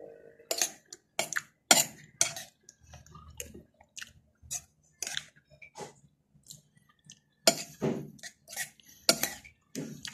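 A metal spoon clinking and scraping against a plate in an irregular string of sharp clinks, with chewing between them.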